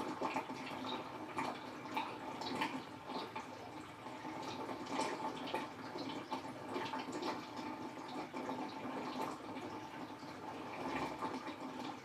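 Toshiba Star Crystal Drum 5K washing machine draining: water trickling and dripping out of the tub with small irregular splashes, over a faint steady hum.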